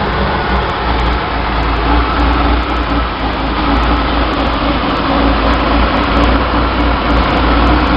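Chevy 230 inline-six engine running steadily at a high idle just after starting, heard close to its Weber 32/36 two-barrel carburetor. The high revs are, in the owner's words, most likely due to a vacuum leak at the extra gaskets of the one-barrel-to-two-barrel adapter.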